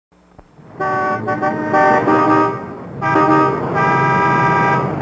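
Car horns honking in a traffic jam. Several horns at different pitches overlap in repeated blasts, starting about a second in.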